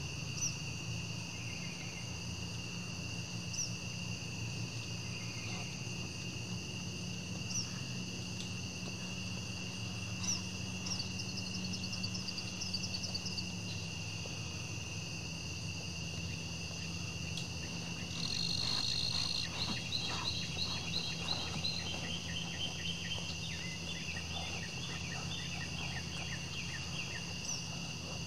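A steady chorus of crickets and other night insects, several high trills holding on together. Short chirps come through now and then, and about 18 seconds in a bird calls in a falling series of quick chirps lasting several seconds, over a low steady hum.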